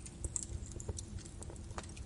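Birch logs burning in a fireplace, crackling with irregular sharp pops and snaps over a low rumble of the flames.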